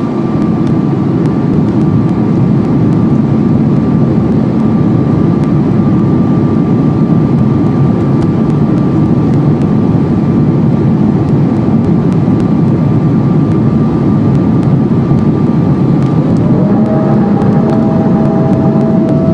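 A vehicle running, heard as a loud, steady rumble with a thin, steady whine above it. Near the end a second tone rises and then holds.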